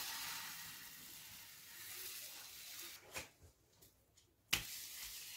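Faint sizzling hiss of thin crepe batter poured into a hot oiled frying pan. Two short sharp clicks about three and four and a half seconds in.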